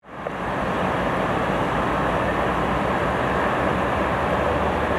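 Steady rushing noise of a heavy rainstorm, with a low rumble underneath, fading in at the start.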